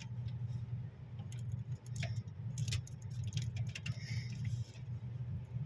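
Scattered small metallic clicks and taps of screws and parts being handled while a refrigerator is taken apart, over a steady low hum.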